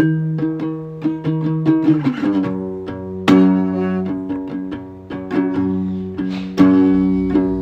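Instrumental music on a plucked guitar: picked single notes, with fuller chords struck about three seconds in and again near the end.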